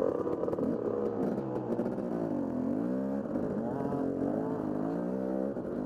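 Dirt bike engines revving on a trail ride, the nearest being the camera rider's KTM. The engine pitch sags and climbs back up about halfway through, and swings again about four seconds in.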